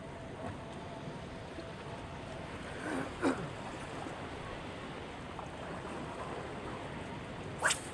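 Steady wash of seawater and wind at a harbour dock. A short falling call comes about three seconds in and a brief sharp sound near the end.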